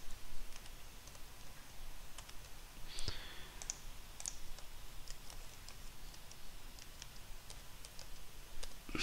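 Computer keyboard typing: scattered, irregular keystroke clicks, with one louder click about three seconds in.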